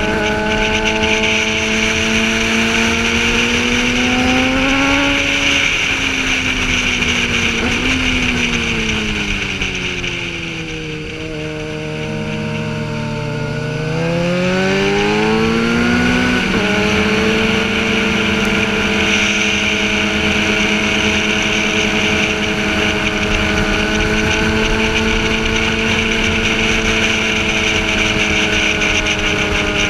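Sportbike engine under way, heard from the rider's seat with steady wind rush over the helmet. It climbs in pitch under throttle, drops sharply with a gear change about five seconds in, winds down as the bike slows for a bend around the middle, then pulls again, shifts up once more, and holds a fairly steady pitch at cruising speed.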